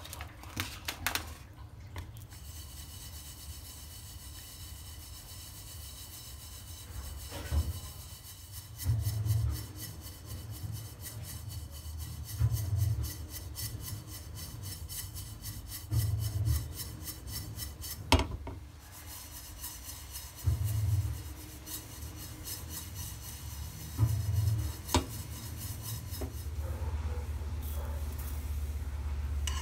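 Sesame seeds toasting in a dry non-stick frying pan, the pan shaken about every four seconds so the seeds rasp and swish across it, over a low steady hum.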